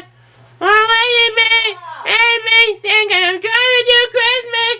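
A young man singing wordlessly in a high voice: several short phrases of long held notes with slides between them, starting after a brief pause.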